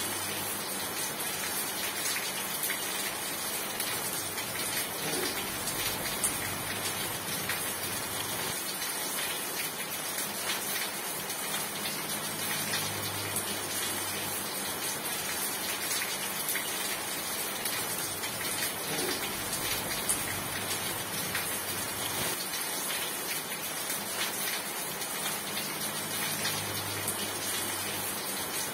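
Steady rain falling, a dense even patter with individual drops ticking through it.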